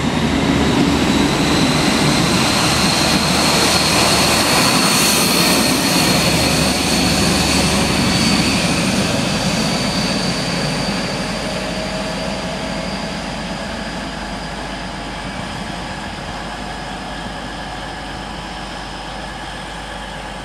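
East Midlands Trains diesel passenger train pulling away and accelerating out of the station. Its engines run with a rumble and a high whine that rises slightly in pitch, then the sound fades steadily as the train draws away.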